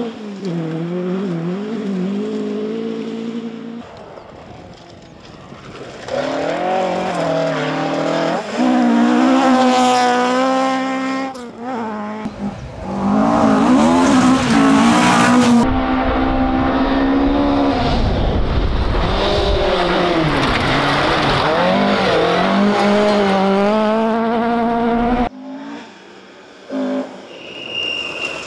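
Ford Escort Mk2 rally cars sliding through gravel corners one after another, their engines revving hard, rising and falling in pitch with the throttle and gearchanges, in a string of short separate passes. The last pass is quieter, a car still some way off.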